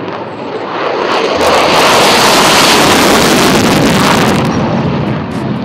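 F-16 fighter jet taking off on afterburner: a loud jet engine rush that swells over the first two seconds, holds, then fades near the end as the jet passes.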